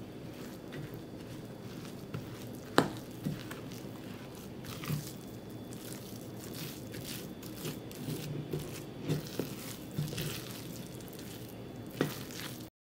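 A fork stirring crumbly pistachio cookie dough in a glass bowl: irregular soft crunching and squishing as the flour and chopped nuts are worked in, with sharp clinks of the metal fork against the glass, the loudest about three seconds in and another near the end.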